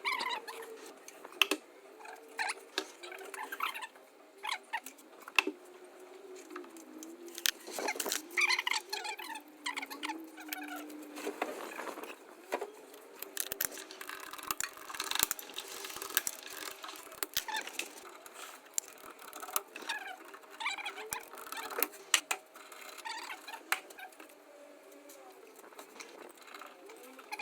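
Irregular light clicks, taps and knocks of hand work, likely tools and fittings being handled, over a faint wavering tone.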